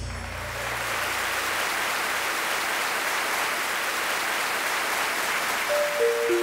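Applause, a steady even clatter of many hands, as a low boom fades out at the start. Near the end a short run of musical notes steps downward.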